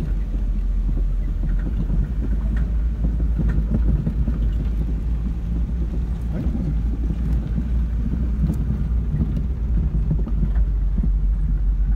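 Car driving on an unpaved dirt road, heard from inside the cabin: a steady low rumble of engine and tyres with scattered small knocks and rattles from the rough surface.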